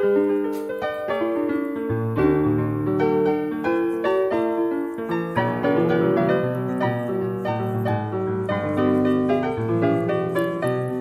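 Background piano music, a continuous run of notes with a lower bass part coming in about two seconds in.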